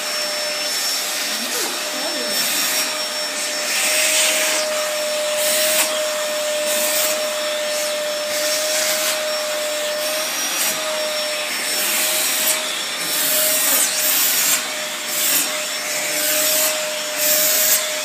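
Vacuum cleaner running steadily with a constant motor whine, and repeated short surges of rushing, rubbing hiss as the nozzle is worked over a Bengal cat's fur.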